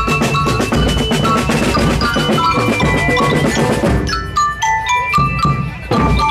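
Music of drums and glockenspiel-like bells: a steady beat of drum strokes under high, ringing bell notes. The drums drop away for about two seconds past the middle, leaving the bells, and come back near the end.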